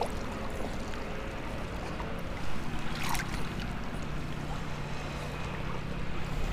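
Shallow stream water running steadily around a wading angler, with a short splash of water being disturbed about three seconds in.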